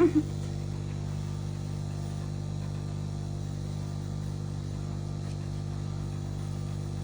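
A steady low hum made of several even tones, unchanging throughout. A short voice-like sound comes at the very start.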